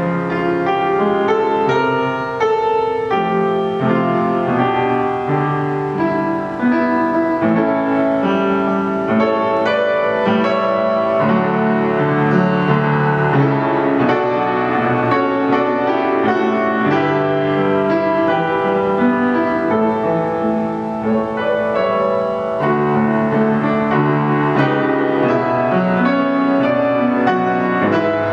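Solo piano music, a continuous flow of notes and chords.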